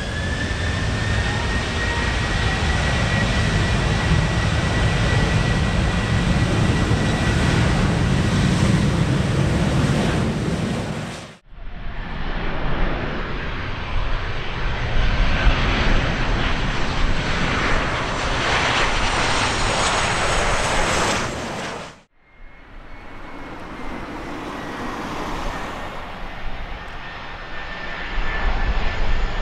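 Boeing 737-800 jet engines spooling up on the runway for the takeoff roll: a whine rises and levels into a steady high tone over a heavy rumble. After a sudden cut, a 737 passes on final approach with a rushing jet noise and whines climbing in pitch. After a second cut, an Airbus A319 on approach, quieter at first, with a steady whine that grows louder near the end.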